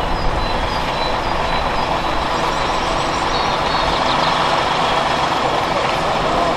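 Diesel engine of a Mercedes-Benz heavy-haulage tractor unit running steadily as it pulls a loaded low-loader at walking pace, growing slightly louder as it comes closer.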